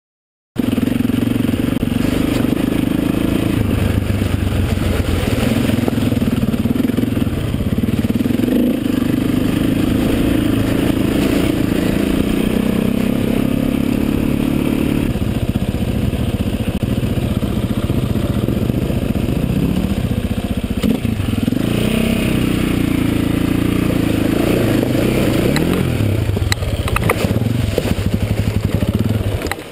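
KTM trail bike engine running hard over rough ground, its pitch rising and falling as the rider works the throttle and gears. Near the end there is splashing and clatter as the bike drives into a river crossing.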